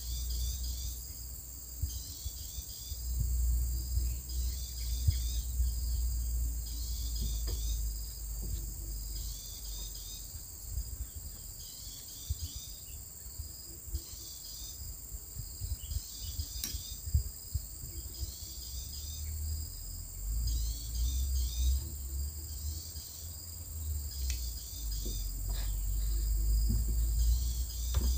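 Steady, high-pitched insect chorus, with bursts of chirping recurring every couple of seconds, over a low rumble and a few scattered clicks.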